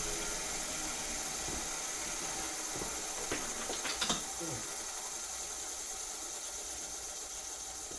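Bench grinder running while a high-speed steel tool blank is ground against the wheel, a steady hiss with a high whine over it. A few sharp clicks come about three to four seconds in.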